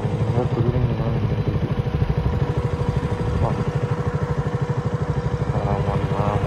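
Motorcycle engine running steadily under way, with a rapid, even firing beat and a steady hum.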